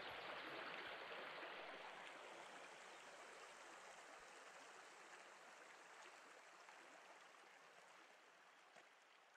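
Faint, even rushing of river water, fading out slowly to near silence.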